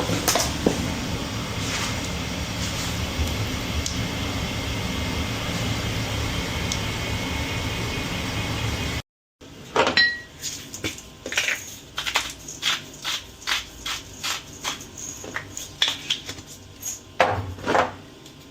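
A steady rushing noise, then a run of light, uneven clicks and knocks, a few a second, of hard objects being handled.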